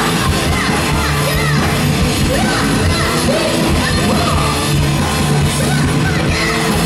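Live punk-rock band playing loud, with electric guitar, bass guitar and drums, and a woman singing into a microphone, heard through the festival PA from the crowd.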